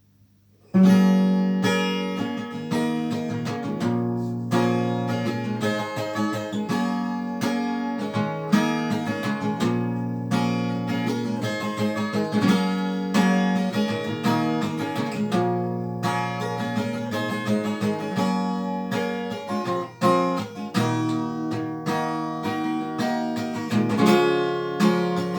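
Acoustic guitar playing an instrumental introduction, picked and strummed chords, starting about a second in.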